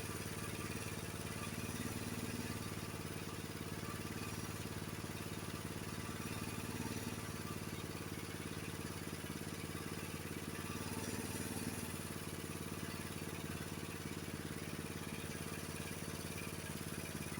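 Honda HS724 snowblower's single-cylinder four-stroke engine idling steadily at about 2100 rpm while its idle-speed screw is being set.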